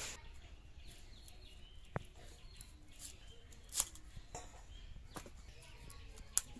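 A few sharp snaps and clicks, spread across several seconds, as a fresh cauliflower is broken apart by hand and its stalks trimmed on a curved floor-mounted blade. Faint chickens and small birds call in the background.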